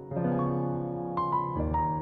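Slow piano music, lullaby-style: sustained notes ringing on, with new notes struck just after the start, about a second in, and near the end.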